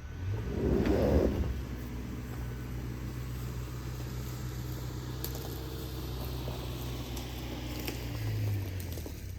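Pickup truck driving with its engine running steadily and road noise, with a louder rumble about a second in.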